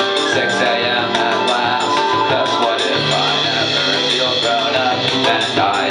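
Live band playing a rock song, with guitar, bass guitar and drums. A bass line comes in strongly about halfway through, over steady cymbal hits.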